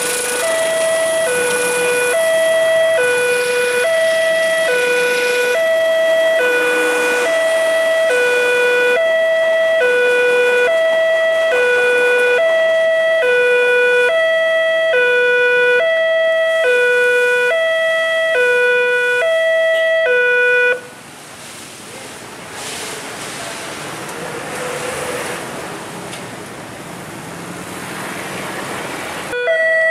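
Railway level crossing warning alarm sounding: an electronic two-tone signal alternating steadily between a low and a higher note, about one pair every second and a half. It cuts off abruptly about two-thirds of the way through, leaving a quieter noisy rumble, and starts again near the end.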